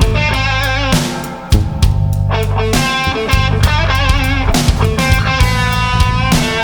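Rock band playing an instrumental passage, with electric guitar over bass and drum kit. The band thins out for a moment about a second in, then crashes back in with a hard hit.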